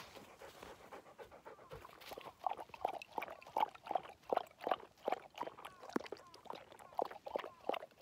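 English setter eating a treat from a small cup right at the microphone: rhythmic chewing and smacking, about three a second, growing louder about two seconds in.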